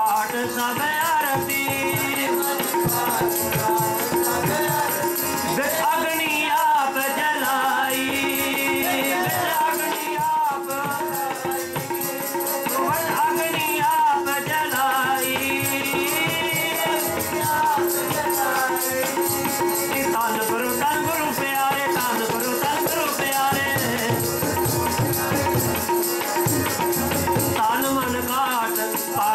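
Sikh kirtan: a man sings a devotional hymn over held harmonium chords, with tabla drumming and a fast, constant high jingle of shaken percussion.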